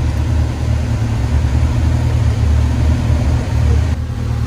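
Steady low rumble of an off-road vehicle's engine, heard from inside its open cab.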